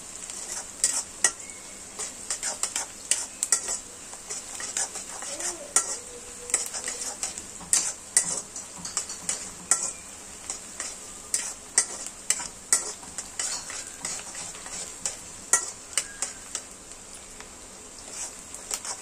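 Sliced onions sizzling in hot oil in a heavy black kadai, stirred with a metal spatula that scrapes and clicks against the pan many times at an irregular pace. The onions are being fried until they turn red-brown.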